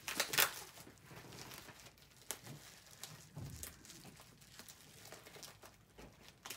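Plastic wrapping around a stack of bagged comic books crinkling and rustling as it is handled. The sound comes as short crackles, loudest about half a second in, then softer on and off.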